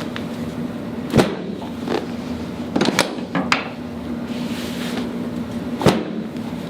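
Sharp clacks of a chiropractic adjustment of the hips and sacrum: four quick knocks, the loudest about a second in, over a steady low hum.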